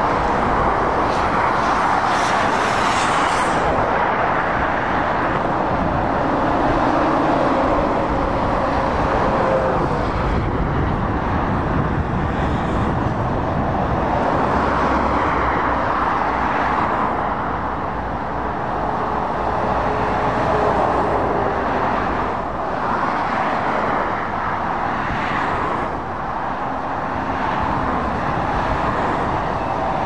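Steady road traffic as lorries and cars pass one after another, their tyre and engine noise swelling and fading with each vehicle. A loaded Volvo FH heavy-haulage lorry passes close in the first few seconds and is the loudest moment.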